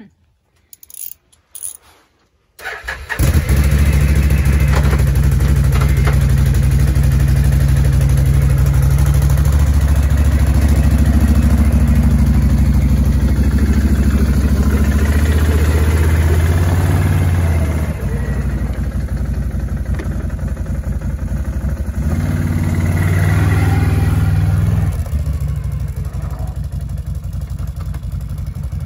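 A few clicks, then an 800R V-twin EFI ATV engine starts about two and a half seconds in and runs steadily, its first start after a cracked, dry-rotted air intake boot was replaced. Its pitch drops about 18 seconds in and rises again a few seconds later, as the quad is ridden off.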